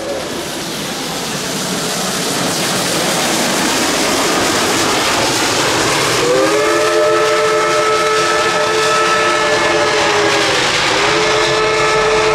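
Reading & Northern 425, a Baldwin 4-6-2 steam locomotive, working past with a loud hiss of steam and exhaust. It then sounds its home-built three-chime whistle: a long blast starting about six seconds in, a brief break, and a second blast near the end, each sliding up a little in pitch as the whistle opens.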